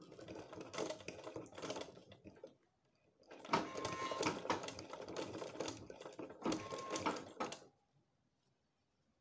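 Black domestic sewing machine stitching through stiff marco board, foam breast pad and fabric in two runs with an even, rapid rhythm. The first run stops about two and a half seconds in, the second starts after a short pause and stops about a second and a half before the end.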